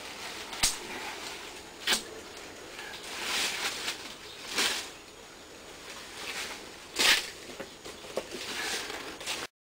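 Courgette harvest by hand: the large leaves rustle as the plants are pushed aside, with four sharp clicks and knocks as courgettes are cut and dropped into a plastic crate. The sound cuts off suddenly near the end.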